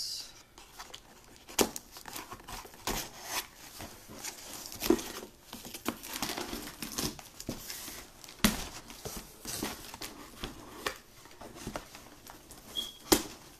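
Knife slitting and tearing the packing tape on a cardboard shipping box, with crinkling and rustling as the flaps are pulled open and a few sharp knocks against the box.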